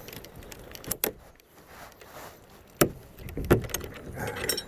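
A few sharp metal knocks and clanks, a second or two apart, as combination wrenches and a broken brass padlock are handled.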